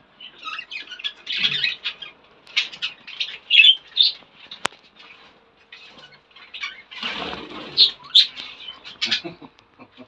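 A flock of caged show budgerigars chirping and chattering in short, high squeaks, with a flutter of wings about seven seconds in. A single sharp click comes about halfway through.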